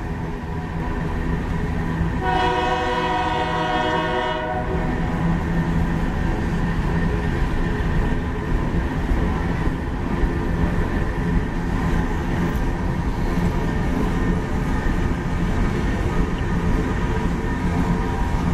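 Empty coal train rolling past, a steady rumble of steel wheels on the rails under the empty coal cars. About two seconds in, a locomotive air horn sounds one blast of about two seconds.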